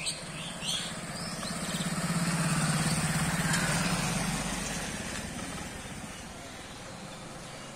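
A motor vehicle's engine passing by: a pulsing engine hum that grows louder from about a second and a half in, peaks, and fades away by about five seconds in. Faint bird chirps come just at the start.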